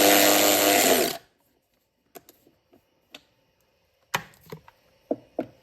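DeWalt DCF500 12V cordless ratchet's motor running under the trigger while driving a small screw, then winding down and stopping about a second in. A few light clicks and one sharp tap of the tool being handled follow.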